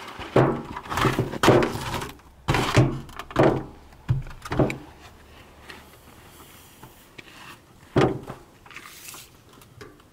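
Stepladder knocking and clattering against the corrugated steel wall of a shipping container as it is set up: a quick run of knocks and thumps over the first five seconds, then a single thump about eight seconds in.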